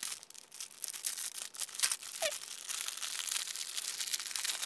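Clear plastic packaging sleeve crinkling and crackling as it is handled and pulled open by hand, with irregular tearing sounds.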